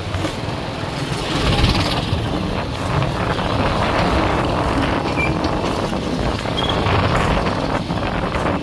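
Engine and road noise of the vehicle carrying the camera along a rough unpaved road, steady throughout, with wind buffeting the microphone.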